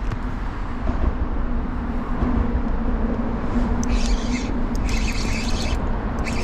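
Fishing reel cranked in two short rasping bursts, about four and five seconds in, as a fish is hooked and the rod bends. Under it runs a steady low rumble and a faint steady hum.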